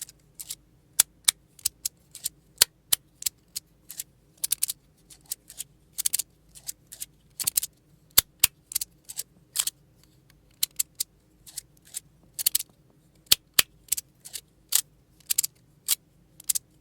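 3D-printed plastic square magnetic fidget slider being slid back and forth, its plates snapping to a stop with sharp clicks, two or three a second at an uneven pace, some in quick pairs. Its magnets are rather weak.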